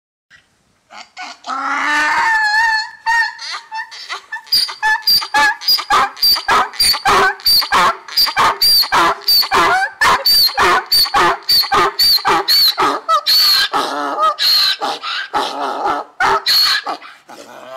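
Donkey braying. It opens with a drawn-out call, then breaks into a long run of quick, even hee-haw strokes, about two or three a second, that stops shortly before the end.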